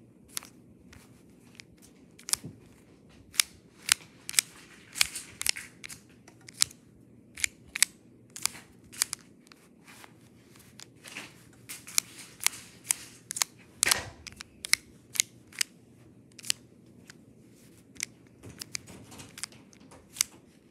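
Plastic fraction tiles being slid and knocked against each other inside a clear plastic case, pushed around like a sliding puzzle: a string of sharp, irregular clicks, about one or two a second, the loudest about 14 seconds in.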